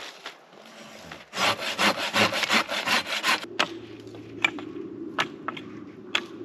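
A hand saw cutting through wood in quick, even strokes for about two seconds, followed by a steady low hum with scattered sharp clicks.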